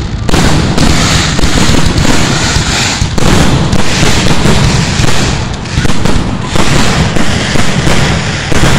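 Fireworks going off at close range: shells launching and bursting in rapid, near-continuous succession, loud, with crackling between the bangs.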